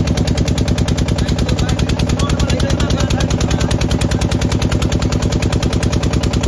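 Motorboat engine running steadily close by, with a fast, even putter.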